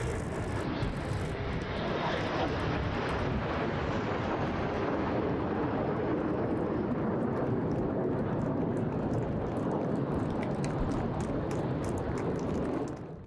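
Alpha Jet turbofan engines running as a steady jet noise, with a faint high whine that slowly falls in pitch over several seconds. The sound drops away abruptly near the end.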